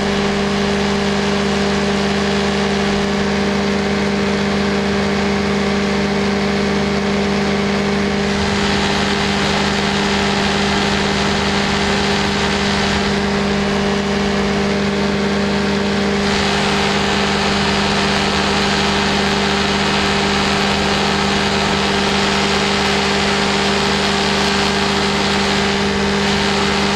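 Light aircraft engine and propeller running steadily at cruise with an unchanging drone, under wind rush across the open airframe that swells and eases a few times.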